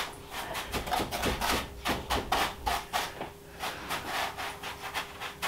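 Damp perlite being pressed and flattened by hand in a plastic tub: irregular gritty crunching and scraping strokes, several a second.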